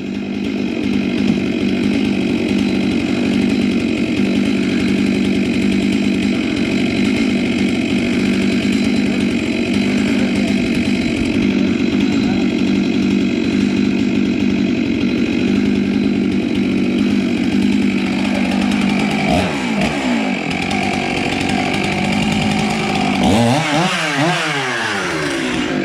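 Chainsaw running at high, steady revs while cutting melaleuca wood. About 19 seconds in the engine note dips and climbs as the throttle is eased and opened again, and near the end it falls and rises once more.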